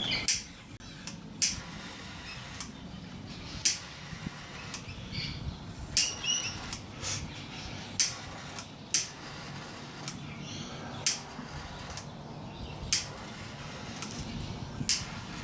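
Sharp, irregular clicks and taps, roughly one every one to two seconds, from hand work on small wiring parts, over a low steady hum.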